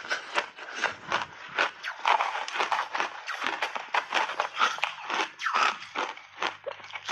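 Close-miked crunching of crumbly snow-white block ice being bitten and chewed: a dense run of crisp crunches, several a second.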